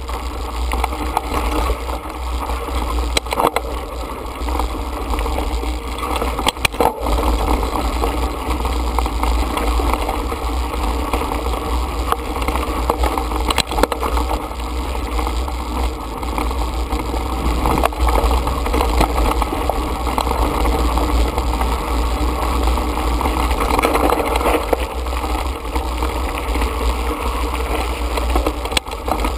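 Mountain bike riding over a rocky dirt singletrack, heard from the handlebars: a steady low rumble of wind and vibration with tyre noise on gravel, and a few sharp knocks as the bike hits stones.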